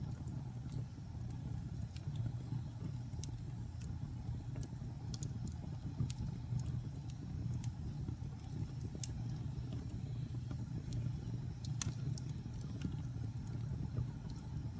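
Wood fire burning in a fireplace: a steady low rumble of flames with scattered sharp crackles and pops, a louder pop about three-quarters of the way through.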